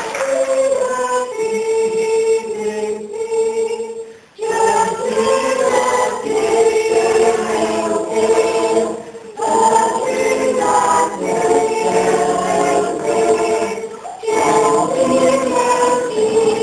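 Mixed choir of adult and children's voices singing unaccompanied. Phrases last about five seconds, with brief breaths between them.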